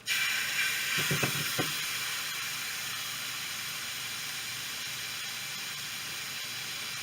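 Ground beef sizzling in a hot frying pan, starting suddenly, with a few low knocks about a second in, then a steady sizzle as the meat browns.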